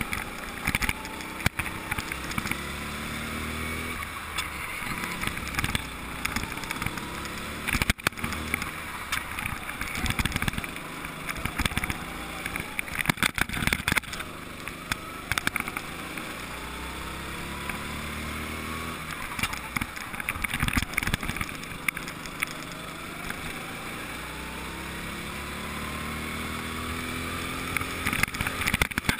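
Go-kart engine revving, its pitch climbing for several seconds along the straights and dropping back for the corners, about five times over, heard from on board. Bursts of rattling and knocking from the kart come through here and there.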